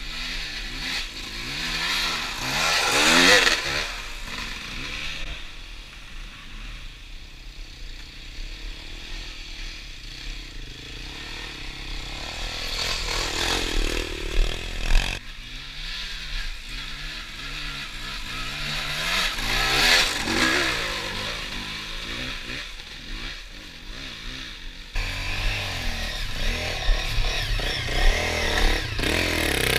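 Dirt bike engines on a trail ride, revving up and easing off in repeated swells.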